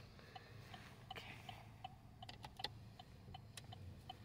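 Car turn-signal indicator ticking evenly, about two to three clicks a second, over a faint low hum from the idling engine, heard inside the cabin. A couple of sharper clicks stand out midway.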